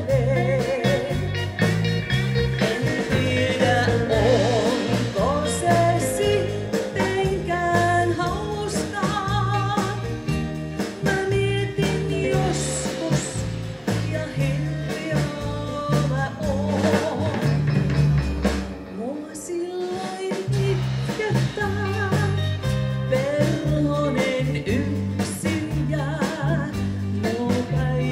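Live band playing through a PA: electric guitars, bass and drums under a sung vocal line. The bass and drums drop out briefly about two-thirds of the way through, then the band comes back in.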